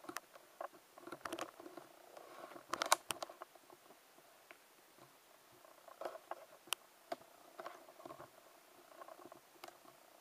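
Copper pipe turning in a lathe while it is ground. The contact gives a faint, uneven scraping with irregular ticks and clicks, the loudest cluster about three seconds in, over a faint tone that comes and goes.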